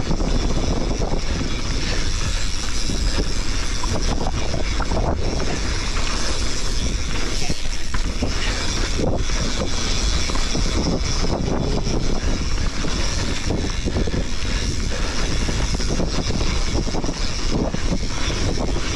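Wind rushing over the action camera's microphone and mountain bike tyres rolling over a dry dirt trail at speed, a steady loud rumble with a heavy low end, broken by a few faint knocks from bumps.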